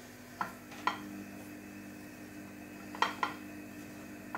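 Hand tossing cut okra pieces in a glass baking dish, coating them in flour and spices: four sharp clicks of okra and fingers knocking against the glass, in two pairs about two seconds apart, over a faint steady hum.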